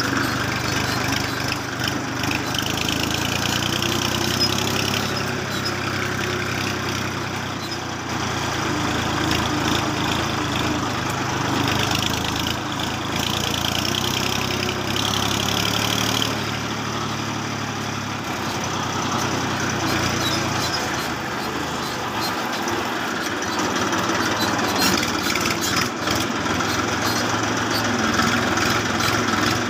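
Steady engine-like running sound, like a tractor, wavering a little in pitch.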